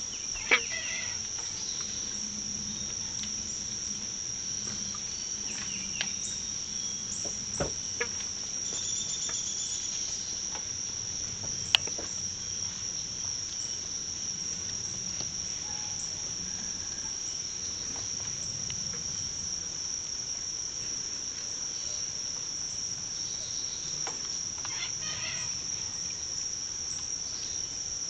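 Steady, high-pitched, unbroken drone of an insect chorus, like crickets. A few short sharp clicks stand out above it, the loudest near the start and about twelve seconds in.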